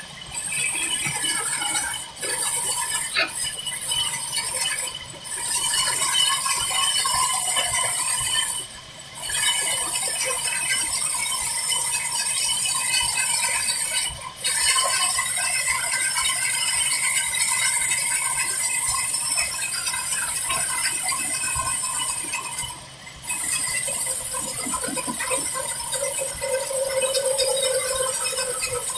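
Large band saw, driven from a Ruston Hornsby diesel engine, ripping a thick wooden beam: a steady high-pitched hiss of the blade in the wood over a rattling clatter of the machine, dipping briefly several times.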